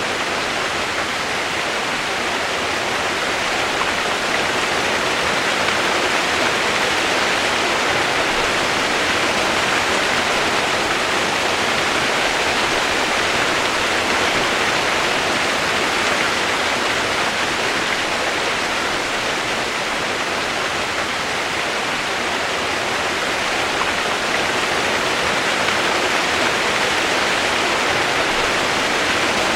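Steady rain as relaxation white noise: an even, unbroken hiss with no separate drops, thunder or changes.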